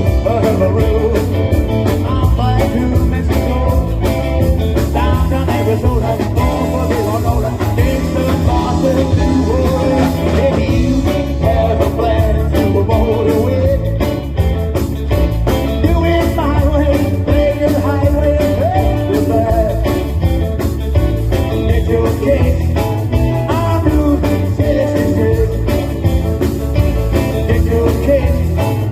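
Rock and roll band playing, with guitar, singing and a steady beat.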